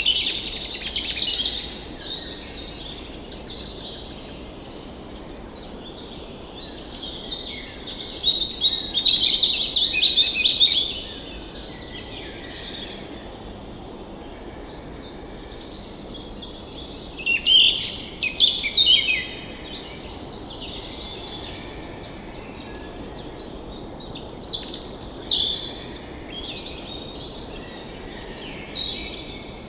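Several songbirds singing and chirping in bouts of quick trills and twitters, loudest about 8 to 11 seconds in, around 18 seconds, around 25 seconds and near the end. Beneath them runs a faint, steady rush of a flowing forest stream.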